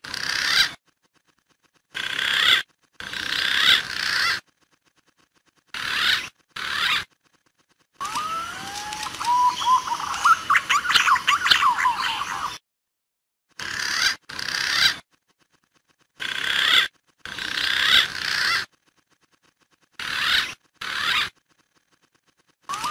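Green pigeon (punai) calls played as a bird-trapping lure: about ten short bursts of calling, each cut off sharply into dead silence. The longest burst, in the middle, holds rising whistled notes followed by a quick run of short chattering notes.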